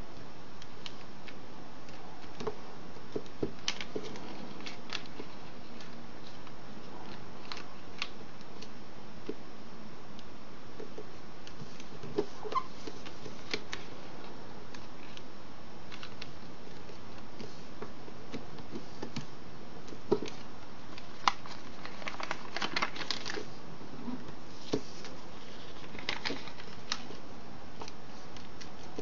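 Origami paper being folded and creased by hand: scattered soft rustles, crinkles and small taps, with a denser run of paper rustling about three quarters of the way through, over a steady background hiss.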